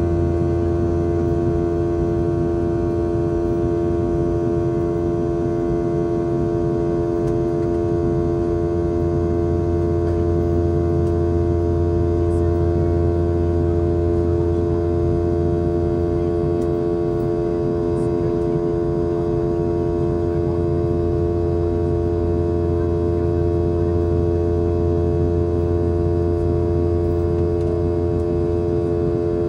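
Steady drone of a Boeing 717's rear-mounted Rolls-Royce BR715 turbofans heard inside the cabin in flight: low rumble and air noise under two strong steady engine tones.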